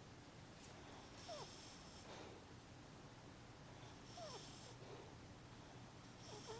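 A sleeping pet snoring softly. Breaths come about every three seconds, each a faint hissy wheeze with a short squeaky whistle in it.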